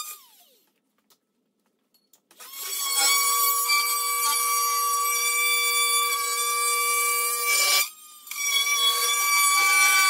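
Corded oscillating multi-tool running with a steady high whine as it trims the bottom edge of a particleboard cabinet. It winds down to a stop at the start, and after about two seconds of quiet it starts again. It cuts out for a moment about eight seconds in, then runs on.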